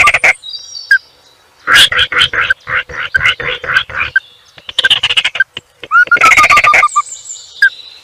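Dry, rattling, frog-like calls of wetland animals in several bursts of rapid pulses, with short pauses between them. A brief falling whistle is heard near the start and again about six seconds in.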